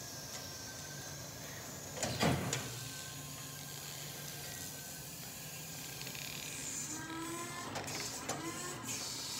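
Toyota 7FBEF15 electric forklift's electric motor and hydraulics whining as the mast and forks are worked, with a loud clunk about two seconds in. Near the end come several short whines that rise in pitch.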